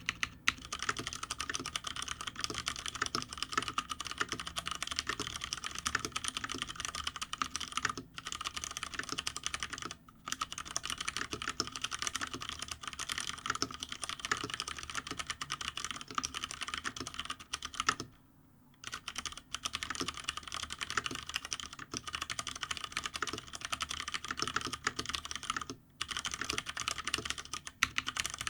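Continuous fast typing on a GTune GK993B SKY mechanical keyboard with stock, unlubed Cherry MX Brown switches, sitting on a bare desk without a deskpad, with a few brief pauses, the longest about two-thirds of the way in.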